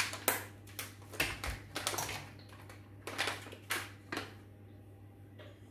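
A spoon clinking and tapping against a Thermomix's stainless-steel mixing bowl as baking soda is added: about a dozen irregular light taps over the first four seconds, then it goes quiet.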